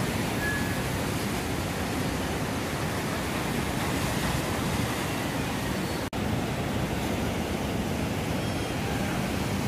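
Breaking waves and whitewater in an artificial wave pool, a steady rushing that cuts out for an instant about six seconds in.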